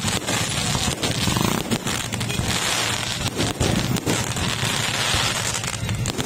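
Aerial fireworks display going off in quick succession, a dense rapid series of sharp bangs and pops from bursting shells.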